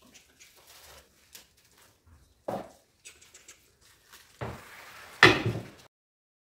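Handling noises as a stainless steel pot of water is moved on its woven mat across a wooden table: light rustles and knocks, then a louder scrape and clunk about five seconds in.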